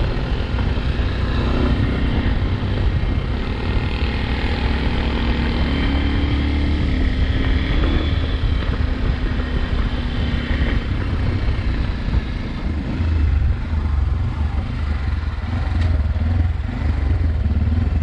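Zongshen Cyclone RX1 motorcycle engine running at a steady road speed while riding, with wind rushing over the microphone.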